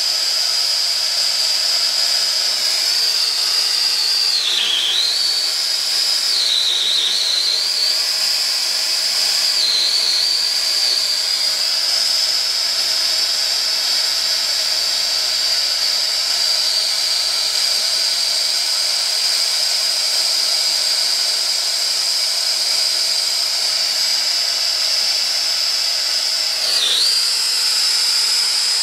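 Air-acetylene brazing torch flame hissing with a steady high whistle while it heats a copper pipe to braze a patch over a hole. The whistle dips briefly in pitch a few times: about five, seven and ten seconds in, and again near the end.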